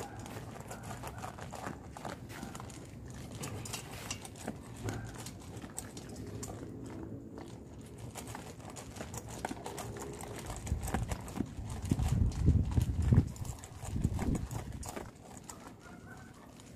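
Several dogs crunching and chewing dry kibble, a steady patter of small sharp crunches. A few heavier low thuds come near the end.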